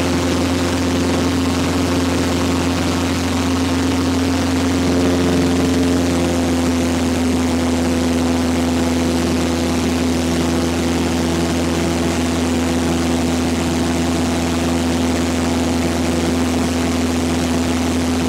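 Cessna 172 seaplane's piston engine and propeller droning steadily in flight, heard from inside the cabin. The tone shifts slightly about five seconds in.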